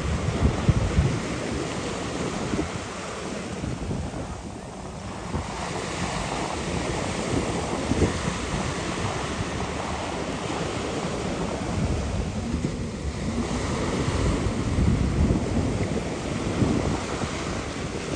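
Wind buffeting the microphone, with rushing, splashing water underneath, rising and falling in gusts.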